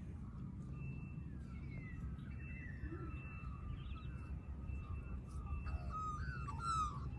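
Noisy miner calling: a run of short chirps and gliding whistles, busier near the end. Behind them is a steady low rumble and a thin steady high tone.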